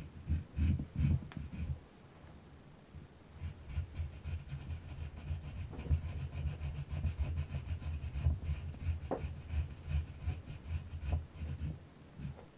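Rapid, rhythmic scraping and rubbing of a round hair brush's bristles as a Java macaque works them against her mouth and hands. It runs for about two seconds, pauses briefly, then goes on steadily until near the end, with a brief squeak about nine seconds in.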